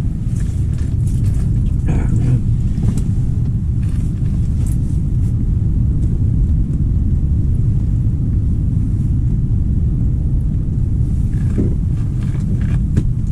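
Strong wind, around 30 mph, buffeting the microphone on open ice: a steady low rumble throughout.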